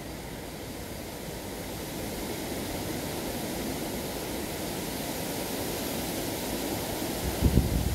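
Steady rushing noise of wind on the microphone, growing slightly louder, with a few low gusts buffeting the microphone near the end.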